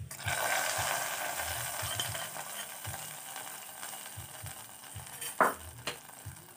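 Hot ghee with fried cashews and raisins poured into the milky payasam: a sharp sizzle that starts at once, then dies away over several seconds. A light knock sounds about five seconds in.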